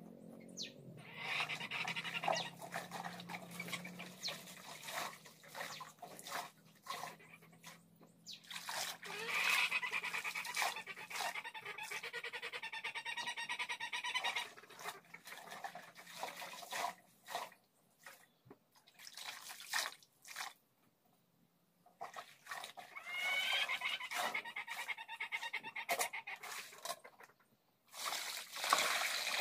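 Wet bedsheets being scrubbed, wrung and sloshed by hand in a metal basin of water, in uneven bouts of splashing and rubbing. Near the end, water is tipped out of the basin with a rush.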